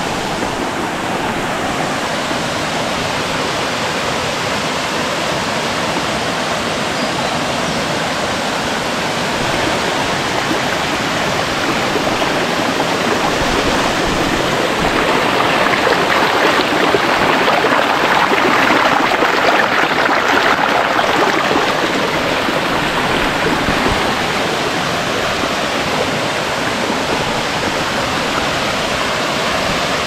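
Steady rushing of a small waterfall and the shallow stream below it running over rocks. It swells somewhat louder about halfway through, then eases back.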